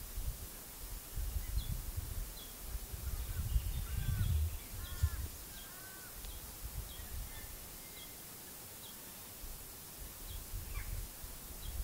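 A currawong calling: three short arched calls about four to five seconds in, over a running series of small high chirps from another bird. Wind rumbles on the microphone.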